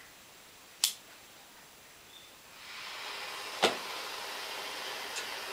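Plumber's gas blowtorch being lit: a sharp click about a second in, then the gas begins to hiss about two and a half seconds in, a louder click, and the torch keeps up a steady hiss.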